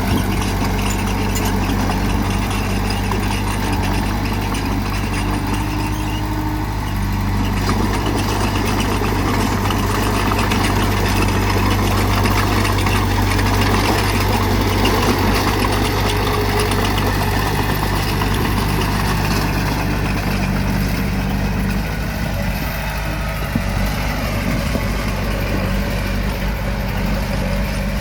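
Diesel engine of heavy earthmoving machinery running steadily, its pitch shifting slightly about a quarter of the way in and again near the end.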